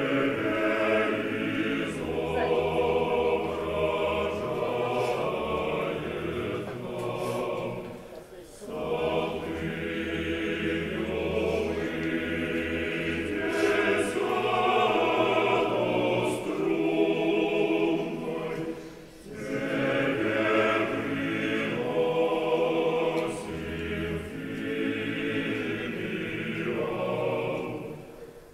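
Church choir singing a slow chant in long, held phrases, with short pauses between phrases about eight and nineteen seconds in.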